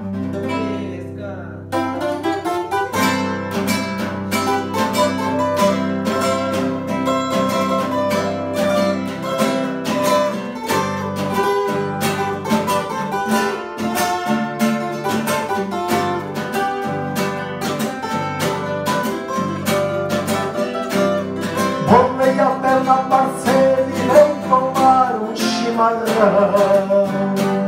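Two acoustic guitars playing an instrumental introduction in a southern Brazilian regional style, plucked and strummed together, coming in fully about two seconds in.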